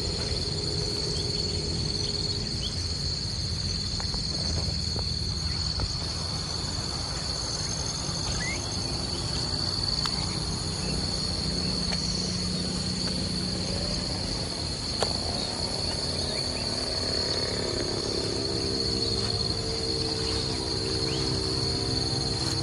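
Steady, continuous high-pitched drone of an insect chorus. Near the end a low hum with several tones joins in.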